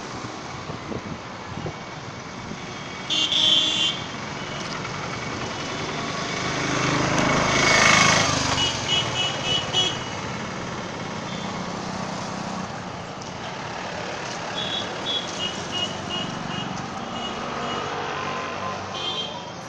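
Busy street traffic. A motor vehicle passes close, swelling up and fading away about eight seconds in. Vehicle horns honk several times: one blast about three seconds in, then runs of short quick toots around nine to ten seconds, fifteen to sixteen seconds and near the end.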